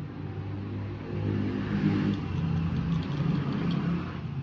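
A motor vehicle engine passing, growing louder about a second in and fading near the end.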